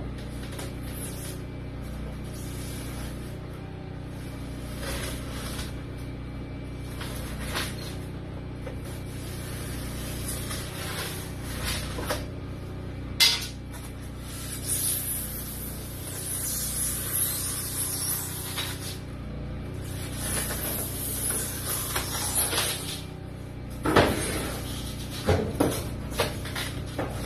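Machete blade slicing down through a foil-faced foam garage-door insulation panel: long scraping, hissing strokes about halfway through and again a few seconds later, with a few sharp knocks. A steady low hum runs underneath.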